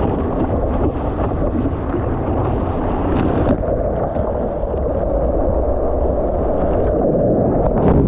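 Water rushing and splashing along the hull of an Epic V7 surfski running on a wave at about 10 mph, with wind on the bow-mounted camera's microphone. A few sharp spray ticks come about three seconds in, and the wash is loudest near the end as white water covers the bow.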